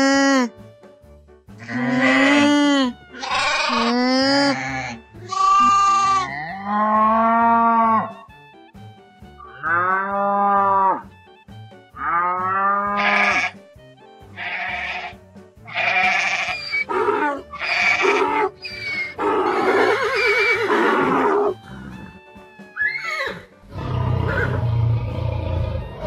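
A run of animal-call sound effects, each about a second long with short gaps between them, over light background music. Pitched cries fill the first half, shakier bleat-like calls follow, and a low roar comes in near the end.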